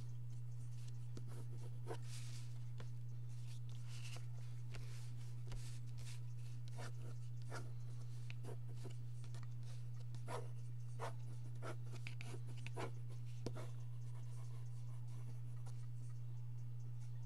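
Pencil scratching on paper in short, repeated sketching strokes, over a steady low hum.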